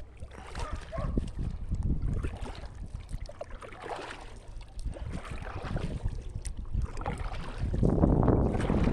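Wind buffeting the microphone outdoors: an uneven low rumble that swells and grows louder near the end.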